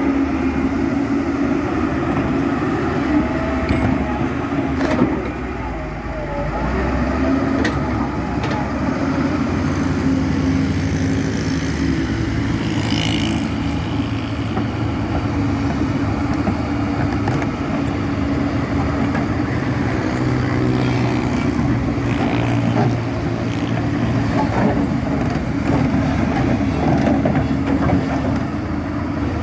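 Hyundai 360LC crawler excavator's diesel engine running steadily, with a few sharp knocks and clanks along the way.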